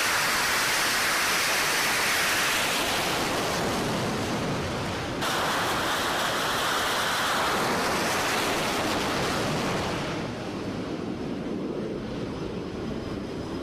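F/A-18 Super Hornet's twin jet engines at full launch power for a carrier catapult shot: a loud, steady roar that starts suddenly and fades over the last few seconds as the jet leaves.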